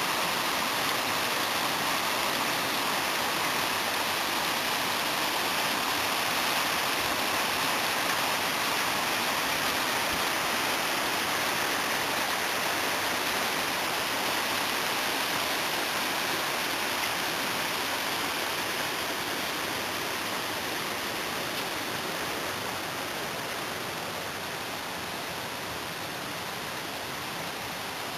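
Mountain stream flowing over rocks: a steady rush of running water that eases slightly toward the end.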